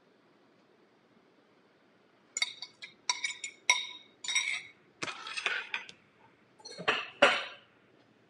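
A metal spoon tapping and scraping on a glass measuring cup, a quick run of ringing clinks starting about two seconds in as the last of the egg mixture is knocked out, followed by a few duller clattering knocks of utensils and dishes.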